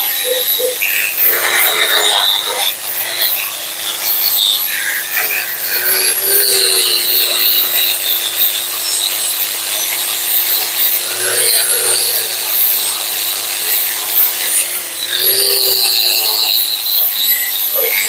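Electric angle grinder running against a rusty steel coil suspension spring, stripping the old paint and rust: a steady motor whine under a grinding noise that swells and fades as the disc bears on the coils.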